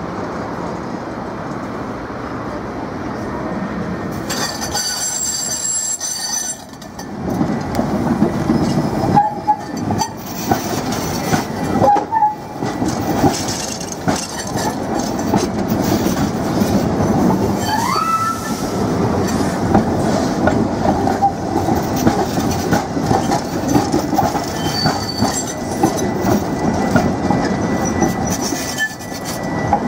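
Coupled Ganz articulated tram rolling slowly past at close range: steady wheel rumble and clatter over rail joints and switches, louder from about seven seconds in. A brief high-pitched wheel squeal comes about four seconds in, and a short rising squeal near the middle.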